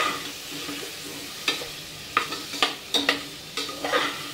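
A metal spoon stirring and scraping potatoes and masala in a pressure cooker, giving several irregular sharp clinks against the pot's side over a faint sizzle of the oil.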